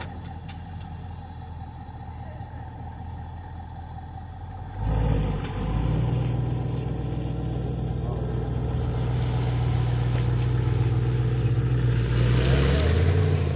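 2020 Chevrolet C8 Corvette's 6.2-litre V8 idling quietly, then about five seconds in it suddenly gets much louder and holds a steady, deep idle. Near the end the note changes as the car pulls away.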